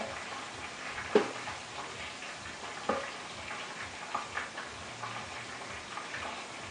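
Red squirrel eating seeds at a feeder tray: irregular crunching and clicking as seeds are cracked and shells drop into the tray, with two sharper cracks about a second and three seconds in.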